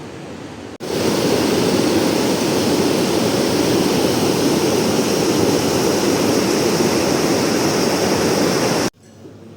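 Fast-flowing river water rushing steadily and loudly, coming in abruptly about a second in after a quieter stretch of the same kind of rushing, and cutting off abruptly near the end.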